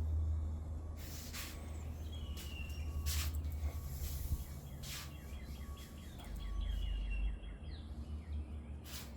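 Small birds chirping and whistling, with a run of quick repeated chirps in the second half, over a steady low rumble and a few brief hissing noises.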